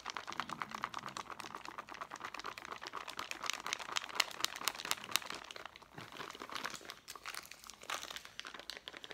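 Plastic MRE dessert pouch crinkling rapidly as it is shaken hard, mixing pudding powder with water.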